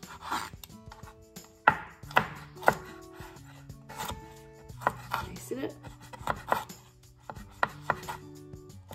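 A knife slicing a tomato on a plastic cutting board: about a dozen irregular knife taps against the board, the loudest a little under two seconds in.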